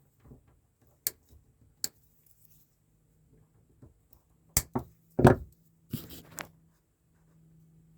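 Handling cables bundled with zip ties: two sharp clicks, then a handful of knocks and thumps, the loudest about five seconds in, over a faint steady hum.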